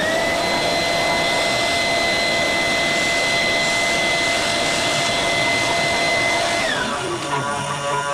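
An electric fan motor, like a vacuum or blower, switched on: it spins up quickly to a steady high whine over loud rushing air. It runs for about six and a half seconds, then switches off and winds down with a falling whine.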